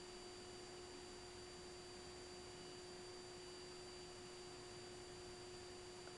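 Bulova Accutron Spaceview watch's tuning-fork movement humming: one steady, faint tone at about 360 Hz, the vibration of the electronically driven fork that keeps the watch's time.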